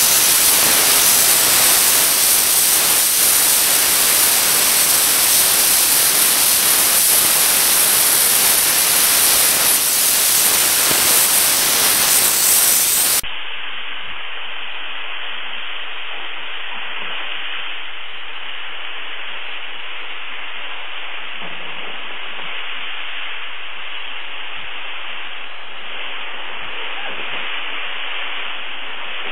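Steam jet from a dry steam cleaner's lance nozzle, hissing steadily. About halfway through the hiss drops to a quieter, duller sound and then carries on evenly.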